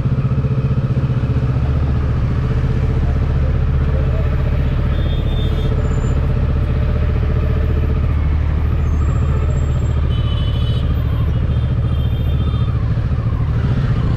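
Kawasaki Ninja 650's parallel-twin engine running steadily at an even, unchanging pitch, with no revving.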